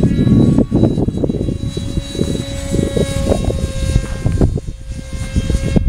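Electric motor of a foam RC A-10 model plane whining steadily in flight, with heavy wind buffeting the microphone.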